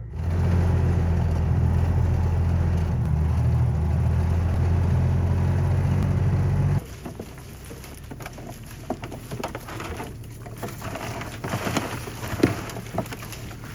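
An engine running at a steady low pitch, which cuts off abruptly about seven seconds in; after it, quieter scattered clicks and rustling.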